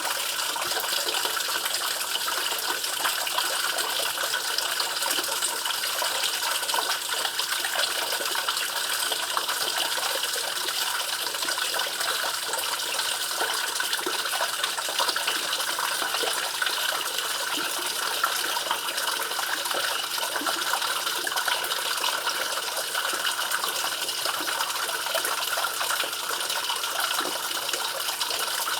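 Water running and splashing in a steady, unbroken rush, with no breaks or changes.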